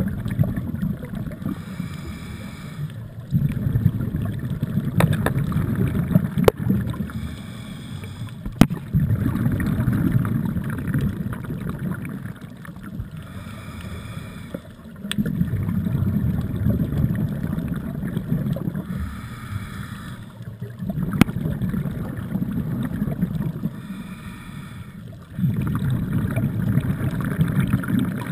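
Scuba diver breathing underwater through a regulator: a short hiss on each inhale, then a long burst of exhaled bubbles, about every six seconds. A few sharp clicks come in between.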